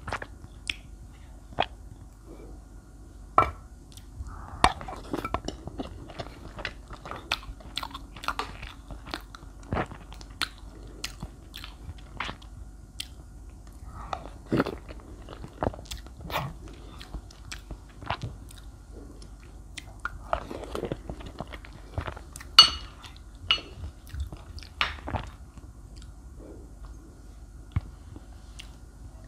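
Close-miked eating sounds: chewing milk-soaked chocolate layer cake, with many sharp irregular clicks and one louder snap about three-quarters through.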